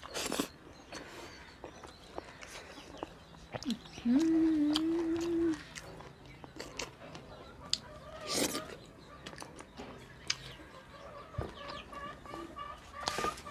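Close-up eating sounds: chewing and small mouth smacks as dhido and chicken are eaten by hand. About four seconds in comes one held hum of about a second and a half.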